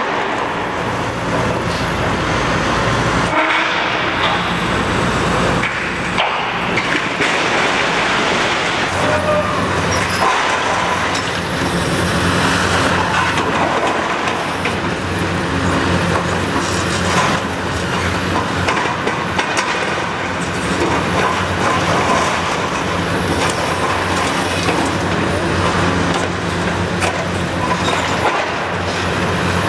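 Demolition excavator's diesel engine running under load while its hydraulic shear crushes and cuts a steel-framed roof section, with metal creaking, crunching and short squeals.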